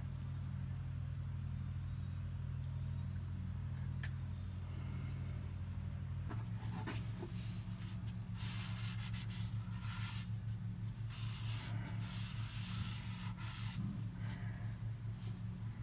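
Rustling and handling noises from hands working over the engine bay with a box and a rag. Underneath runs a steady low hum that turns pulsing about six seconds in, and a faint high chirp repeats evenly, like a cricket.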